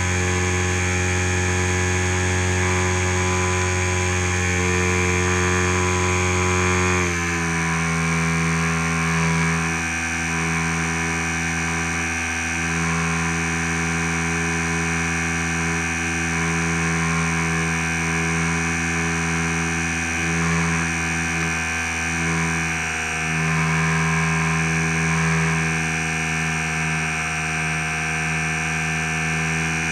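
HobbyZone Super Cub RC plane's electric motor and propeller, heard from the camera mounted on the plane in flight. A steady buzzing whine over wind rush, which steps down slightly in pitch, a drop in motor speed, about seven seconds in.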